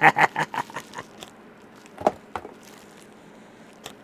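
A package being unpacked by hand: a quick run of crackles and clicks that dies away within the first second, then a few separate knocks and clicks of cardboard and packing being handled.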